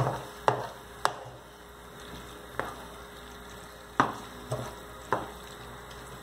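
Wooden spoon stirring a thick vegetable and tomato sauce in a nonstick frying pan, knocking sharply against the pan several times, over a low steady sizzle from the simmering sauce.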